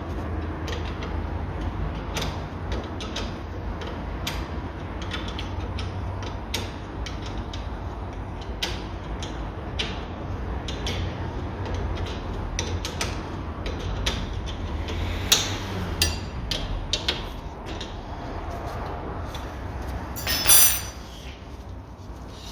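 Metal hand tools clicking and knocking irregularly against brake caliper parts as the caliper bolts are fitted, over a steady low hum. A few louder knocks come near the middle, and a louder scrape comes near the end.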